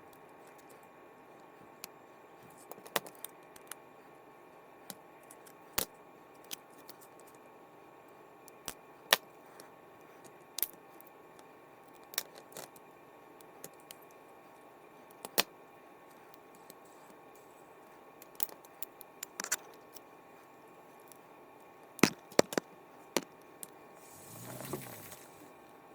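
Small metal parts of a fishing reel clicking and tapping as it is taken apart by hand: scattered sharp clicks, with a short rustling swell near the end.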